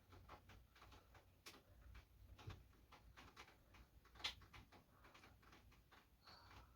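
Near silence with faint scattered taps and clicks, one sharper click about four seconds in.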